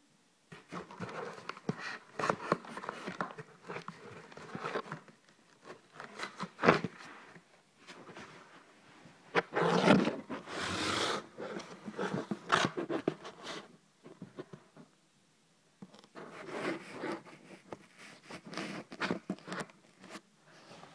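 Irregular scraping, rustling and clicking as a package is cut and worked open with scissors, mixed with knocks of the camera being handled. There is a longer, louder scrape about ten seconds in.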